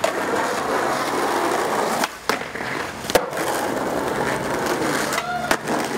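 Skateboard wheels rolling on rough asphalt with a steady grinding rumble. There is a sharp clack of the board striking the pavement about three seconds in.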